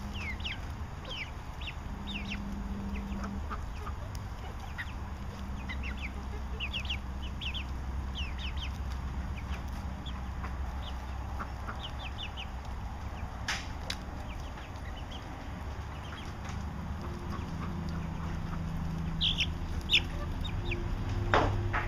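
Five-week-old brown leghorn and mixed-breed chicks cheeping: short, high peeps that fall in pitch, coming in quick clusters while they peck at food, with a few sharp clicks, the loudest near the end.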